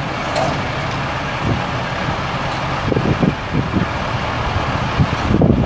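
Cummins L10 turbo diesel engine of a 1990 Volvo WG dump truck running steadily at idle, with irregular low bumps in the last couple of seconds.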